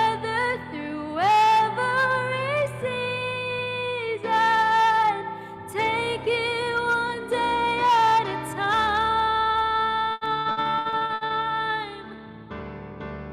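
A young woman singing solo, holding long notes that waver with vibrato at their ends.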